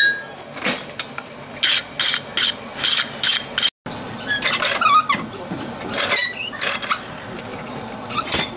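Blacksmith's tongs, a red-hot steel bar and a vise clanking and scraping metal on metal as the bar is handled and clamped: a run of short strokes about three a second, a brief dropout, then irregular scraping with some squeaks.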